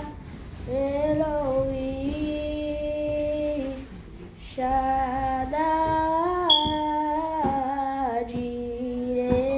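A girl singing, holding long notes, with a short break about four seconds in.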